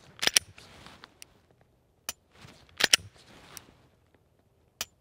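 Semi-automatic pistol being dry fired: sharp metallic clicks of the action on an empty gun, some single and some in quick pairs, about four times over a few seconds.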